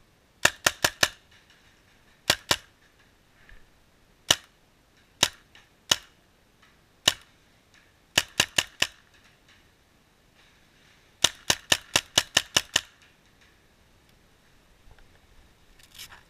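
Paintball marker firing: sharp pops in quick bursts of two to eight shots, with single shots between the bursts.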